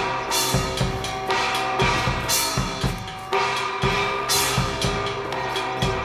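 Festival music led by a steady beat of drum strikes, with a bright crash about every two seconds over sustained held instrument tones.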